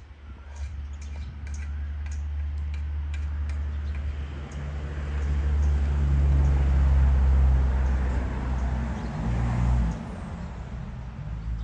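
A motor vehicle's engine running close by, a low hum that grows louder over several seconds and drops off about ten seconds in. Faint clicks of the dogs eating from their bowls show in the first few seconds.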